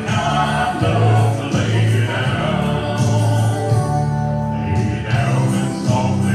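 Music: a backing track with a steady bass line, with men singing along into handheld microphones.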